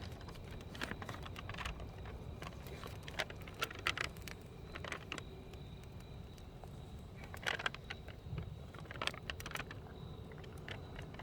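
Wood campfire burning, crackling with irregular sharp pops over a low steady rumble.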